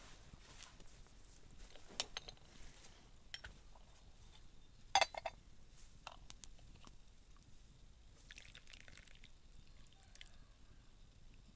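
Teaware being handled: a gaiwan and cups clinking in a few sharp, faint clinks, the loudest a quick cluster about five seconds in, with a short trickle of liquid about eight seconds in.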